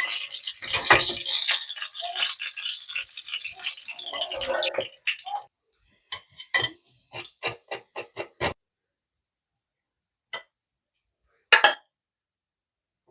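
Kitchen clatter of dishes and cutlery handled for about five seconds, then a run of sharp separate clicks and taps, about three a second, and two lone taps near the end.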